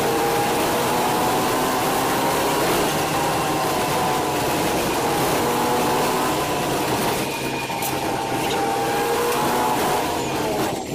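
City bus driving along at speed, heard from inside its cabin: a steady engine and drivetrain hum over road noise. Its pitch sags slightly about seven seconds in and falls again near the end as the bus eases off.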